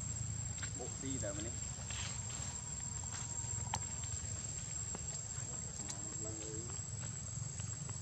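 A steady high-pitched insect drone, with scattered faint clicks and two brief faint wavering calls, one about a second in and one around six seconds in.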